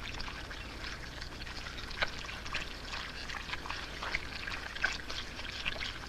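Crowded catfish in a shallow mud pool splashing and squelching, many small irregular wet slaps and gulps as they come up for air in the oxygen-poor mud.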